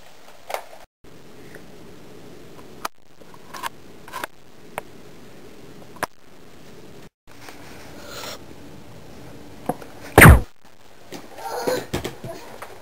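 A few light clicks and knocks over a low steady hum, then one loud, short blast of air about ten seconds in, typical of a spring-powered Nerf blaster firing close by.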